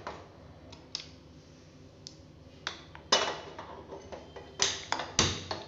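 Enamel pot being set on a gas stove burner: a handful of sharp clicks and light metallic knocks, some with a short ring. The loudest come a little past halfway and near the end.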